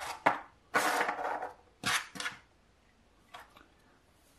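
A small cardboard box being handled and its insert pulled out: a few sharp knocks and taps, with a longer scraping rustle about a second in, then two faint clicks near the end.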